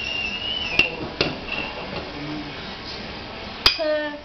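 A spoon clinking against the blender jar as sugar is scooped in: about three sharp clinks.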